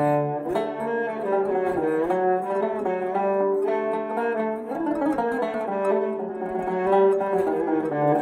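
Turkish classical instrumental duet of a bowed kabak kemane and a plucked tanbur in makam hicazkâr. The fiddle holds and slides between sustained notes while the tanbur picks quick runs of notes along with it.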